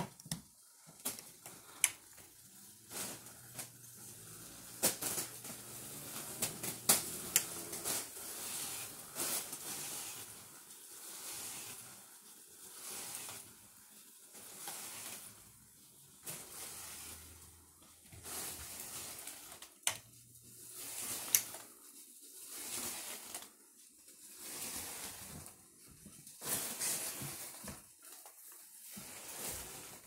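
Foil balloons being hit over and over by the blades of a spinning ceiling fan: waves of crinkling foil rising and falling every second or so, with many sharp ticks and slaps as blades strike the balloons.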